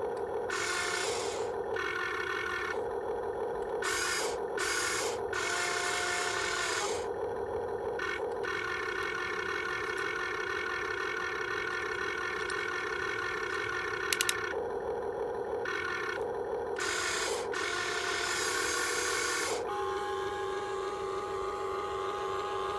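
Small electric motors of a radio-controlled excavator whining steadily, with the pitch holding while the motors cut in and out every second or two as its functions are worked. There is a brief click about fourteen seconds in.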